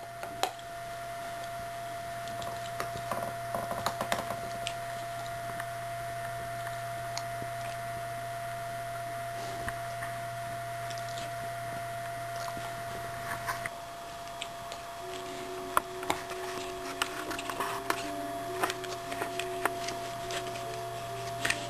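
Dog chewing and tearing at a tennis ball, making scattered small clicks and squishes over soft background music, which holds a steady tone and adds quiet low notes about fifteen seconds in.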